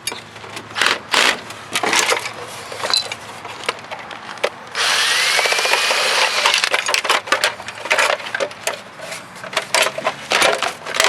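An old sewing machine being taken apart by hand: irregular clicks, knocks and cracks of metal and plastic parts being handled and pried loose. About halfway through, a loud steady rushing noise runs for roughly two seconds.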